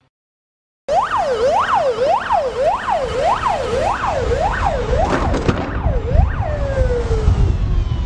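Siren on a Russian military police armoured car (GAZ Tigr), starting about a second in and sweeping rapidly up and down, just under twice a second, over a low engine and road rumble. Around six seconds in the sweeping stops and the tone falls away in pitch as the siren winds down.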